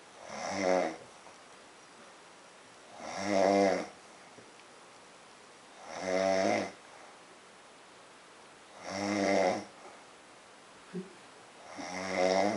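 A woman snoring in her sleep: five snores about three seconds apart, each lasting about a second.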